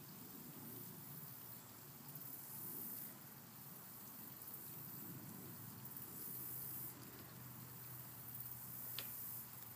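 Faint background noise: an uneven low rumble with a steady low hum coming in partway through, and a single sharp click near the end.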